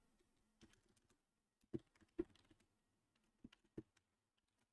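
A computer keyboard being typed on slowly: a few faint, separate key taps at uneven intervals.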